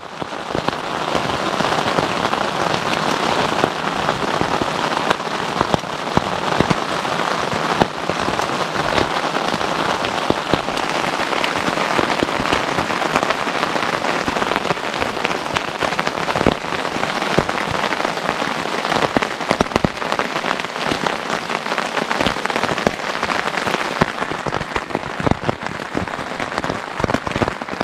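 Heavy freezing rain hitting the fly of a NatureHike Vik tent, heard from inside: a steady hiss dense with many sharp individual taps.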